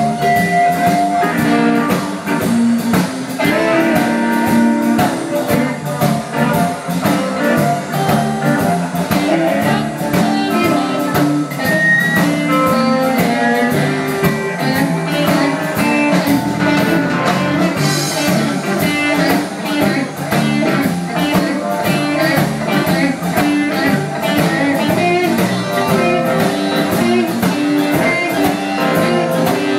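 Live blues band playing, guitar lines over a steady beat.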